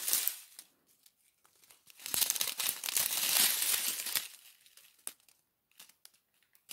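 Small clear plastic bags of diamond painting drills crinkling as they are handled. There is a short burst at the start and a longer spell from about two to four seconds in, then a few light ticks.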